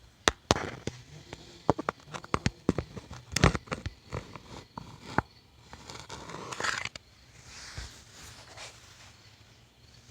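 Handling noise: a quick run of sharp clicks and knocks for about five seconds, then a short scraping rustle.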